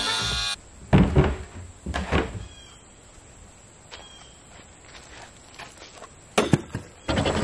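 Stiff plastic of a cut-open IBC tote being handled: scattered knocks and thumps, two pairs about one and two seconds in, a sharp knock past six seconds and a quick cluster near the end.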